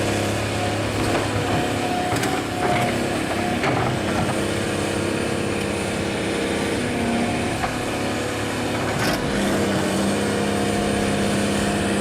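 Heavy diesel engine running steadily under load, its pitch shifting slightly a few times.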